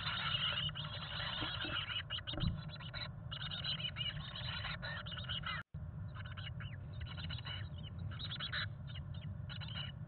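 Chickadee nestlings begging with rapid, high chirps as a parent feeds them. The chirping is densest in the first few seconds and grows sparser after a brief dropout midway. A steady low hum runs underneath, and there is a thump about two and a half seconds in.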